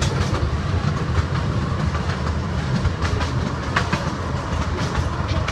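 Open-sided passenger car of a small park train rolling along its track. A steady low rumble runs throughout, with scattered clicks and clacks from the wheels and the car.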